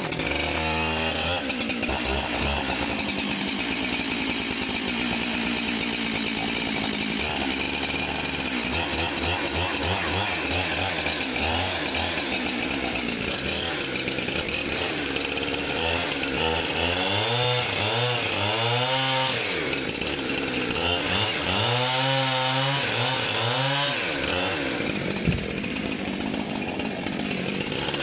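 Husqvarna 372XP two-stroke chainsaw running, revved up and down several times in the second half.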